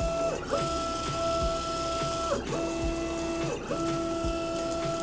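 Nema 17 stepper motors of a CoreXY gantry driving the carriage over GT2 toothed belts: a steady whine that stops and restarts about three times with short pitch glides, the pitch changing from one move to the next. Under it are crackling and rattling from the linear ball bearings, which the builder thinks are probably of poor quality.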